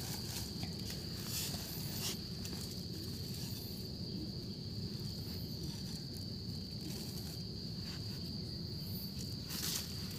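An insect, cricket-like, trilling steadily at one high pitch, over faint rustles and scrapes of a hand and a stick working through dry leaves and soil.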